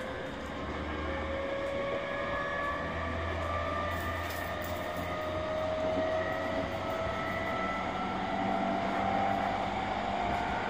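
E231 series 1000-subseries electric train with renewed traction equipment, heard on board while running: the traction motor whine rises steadily in pitch as the train accelerates, over the rumble of wheels on rail.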